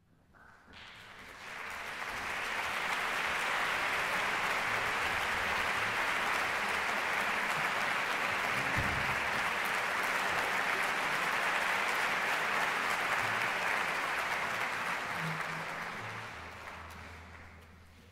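Large audience applauding in a concert hall, swelling over the first two seconds, holding steady, then dying away over the last few seconds as the orchestra's performance is about to begin.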